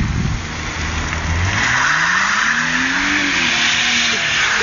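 Holden Commodore engine revved up from idle, rising in pitch and then easing off, while the driven wheels spin on wet ground: a burnout, with tyre screech starting about a second and a half in.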